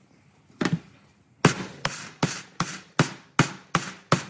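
Hammer blows: a single strike, then a steady run of eight strikes at about two and a half a second, each with a short ring.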